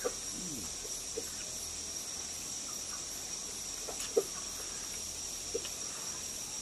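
Crickets keeping up a steady high-pitched trill, with a few short slurping and clicking sounds of someone eating from a bowl with chopsticks; the sharpest comes about four seconds in.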